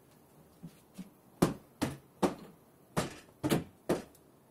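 A series of sharp knocks: two faint taps about a second in, then six louder, unevenly spaced knocks over the next two and a half seconds.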